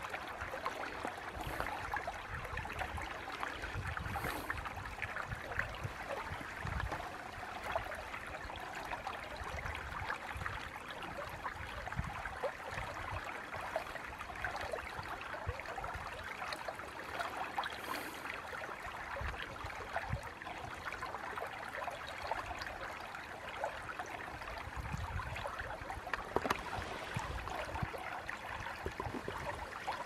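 Shallow creek water babbling steadily over rocks in a riffle, a continuous rushing with fine splashing detail.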